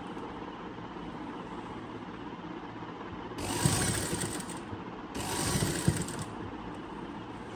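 Electric sewing machine stitching in two short runs of about a second each, the first about three and a half seconds in and the second about five seconds in, over a steady low hum.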